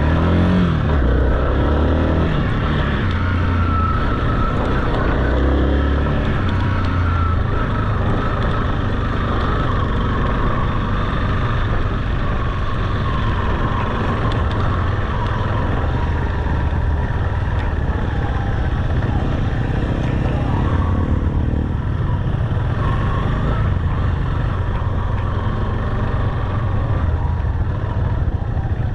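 Motorcycle engine running under way, with the revs rising at the start, over a steady rush of noise.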